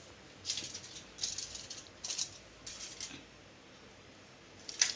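Aluminium foil crinkling in short bursts as it is pressed and folded down over the rims of paper cups: about four crackles in the first three seconds, then a pause, then more near the end.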